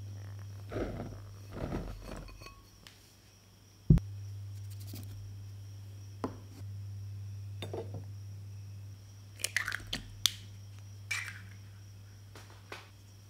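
Ingredients going into a glass mixing bowl: flour poured in with soft rustling, then scattered taps and clinks against the glass, and a cluster of sharp crackling clicks a little past halfway as an egg is cracked. A steady low hum runs underneath.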